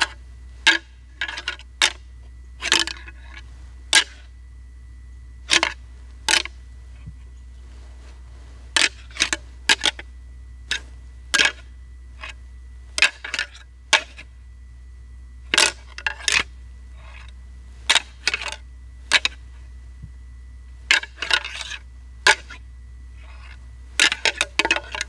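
Rattling antlers: a pair of deer antlers clacked and ground together in short, irregular clusters of sharp clicks with pauses between. It is a subtle rattling sequence imitating two young whitetail bucks sparring, to call a buck in.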